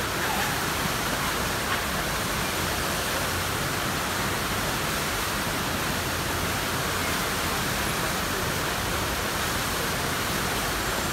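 Steady rush of whitewater pouring over the Eisbach's standing river wave, a constant even roar of churning water.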